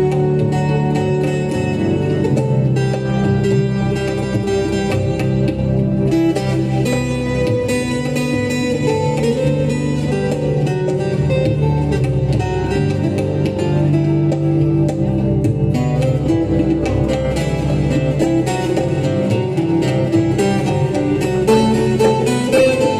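Live instrumental passage from a ghazal ensemble: plucked guitar to the fore, over tabla and keyboard.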